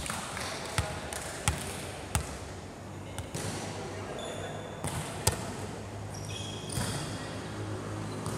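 A volleyball being struck and bouncing on a wooden court: a string of sharp smacks, the loudest a little under a second apart early on and a close pair about five seconds in. Sneakers squeak briefly on the floor, and players call out now and then.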